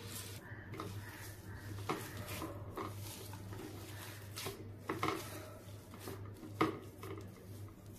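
A hand mashing and kneading soft food on a ceramic plate, with a handful of light, irregular clinks as fingers and wrist bangles knock against the plate.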